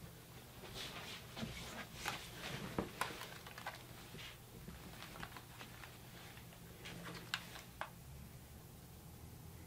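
Faint scattered soft clicks and taps over a low steady hum in a quiet small room.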